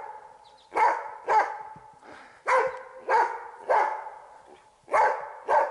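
Hunting dog barking at a sable it has treed: about seven sharp barks in spaced groups of two and three, each with a short echo.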